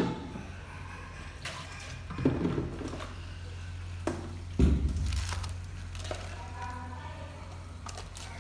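Kitchen work at a cutting board: scattered knocks and clicks, with two heavier thuds about two and about five seconds in, over a steady low hum.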